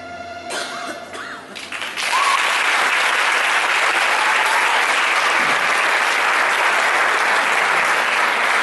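Audience applause breaking out about two seconds in, loud and steady, as the last notes of the dance music die away.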